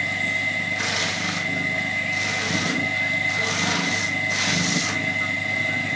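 Electric motor running steadily with a constant high tone, as a maize cob is pressed against a spinning attachment on its shaft, the kernels being stripped off in repeated gritty, rasping surges.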